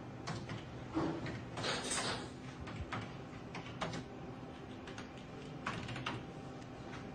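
Typing on a computer keyboard: scattered, irregular key clicks, with a brief louder noisy rustle around two seconds in.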